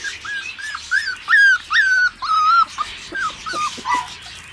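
37-day-old cocker spaniel puppies whimpering: about a dozen short, high-pitched whines in quick succession, the longest and loudest near the middle.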